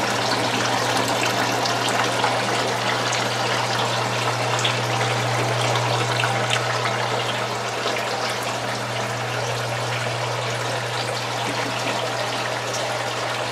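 Water trickling and splashing as a running Dutch bucket hydroponic system feeds its buckets from drip lines and drains through the shared drain pipe, steady throughout with a low hum underneath.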